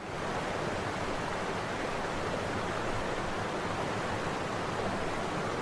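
Waterfall rushing: a steady, even wash of falling water that fades in at the start.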